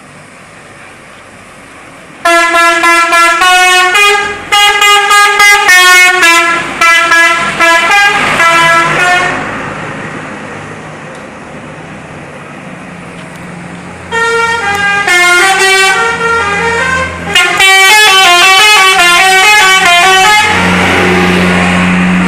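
Indonesian bus 'telolet' musical air horn playing loud tunes: quick runs of multi-note blasts that step up and down in pitch, first about two seconds in and again from about fourteen seconds. Between the tunes a bus engine runs steadily underneath.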